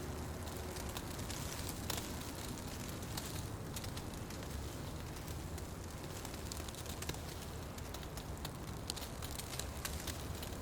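Fire burning in a fireplace: a steady rushing hiss with scattered crackles and pops throughout, one sharper pop about two seconds in.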